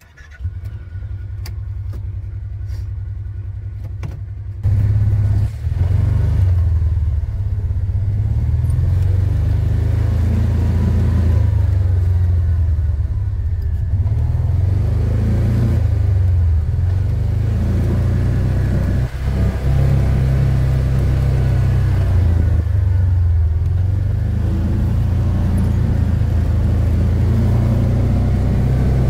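Side-by-side utility vehicle's engine starting up and idling, then about five seconds in getting louder as the vehicle pulls away, and running steadily as it drives.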